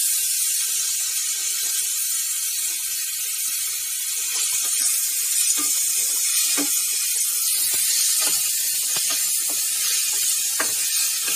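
Chopped onion and bottle gourd sizzling in a nonstick frying pan with a steady hiss. From about halfway, a spatula scrapes and taps against the pan now and then as the mix is stirred.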